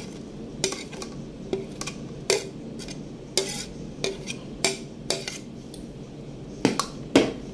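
Cubed cheese being scraped off a plate into a stainless steel mixing bowl, with a metal spoon clinking against the dish and the bowl. A run of sharp taps comes about every half second, and the two loudest are near the end.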